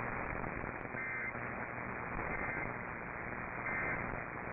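AM radio broadcast static, with three short data bursts about a second and a half apart: the Emergency Alert System end-of-message tones that close the alert.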